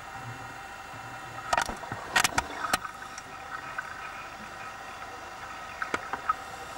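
Underwater scuba-dive recording: a steady hiss with faint humming tones from the camera in its housing, broken by short bubbling, clicking bursts about a second and a half in and again around six seconds, from a diver's exhaled regulator bubbles.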